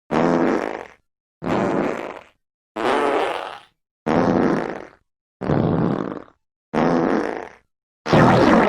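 A string of fart sound effects: seven separate farts of about a second each, one after another, each a low fluttering blast with a short gap of dead silence between them.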